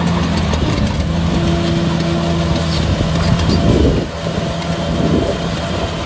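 Heavy diesel engine of earthmoving machinery running steadily. Its note wavers and shifts about three and a half seconds in, with a brief drop in level around four seconds.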